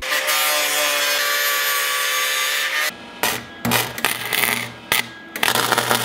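A small power tool runs steadily under load for about three seconds. Then comes welding: several short bursts of arc crackle, each with a low buzz from the welder, as a pipe bushing is welded onto a steel bracket.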